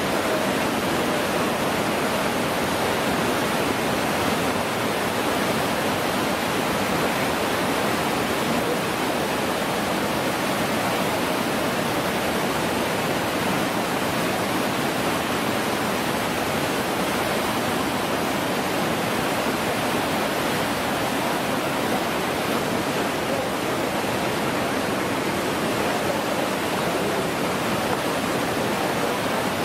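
Whitewater rapids of a river canoe slalom course rushing steadily, an even, unbroken wash of water noise.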